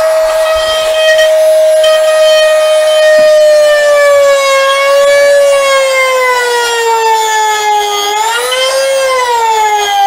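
Hand-held rotary tool with a small router bit, its motor whining loudly as it cuts plywood. The pitch sinks slowly as the bit bogs down in the wood, rises briefly near the end, then drops again: the tool is struggling with the cut and not up to the job.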